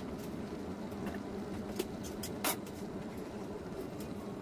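Pot of rice and water simmering on an induction cooktop at medium heat: steady soft bubbling with a few small pops or clicks.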